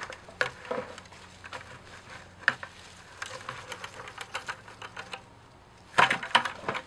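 Soil amended with compost pouring and pattering out of a tipped plastic bucket into a planting hole, with scattered small clicks throughout. A burst of louder knocks about six seconds in as the plastic bucket is handled.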